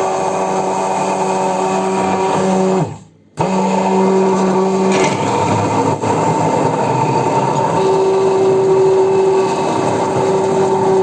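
Electric immersion blender running loud in a jar, whipping mayonnaise: a steady motor hum that cuts out for about half a second near three seconds in, then starts again with a rougher churning sound.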